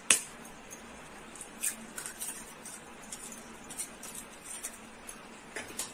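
A knife blade tapping an eggshell to crack it, one sharp click just after the start, then faint scattered clicks and crackles as the shell is pulled apart and the egg drops into a glass bowl.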